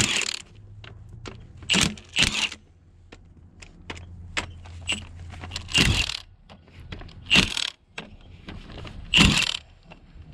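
Impact wrench fired in about six short bursts, breaking bolts loose, with sharp metal clinks of sockets and tools in between.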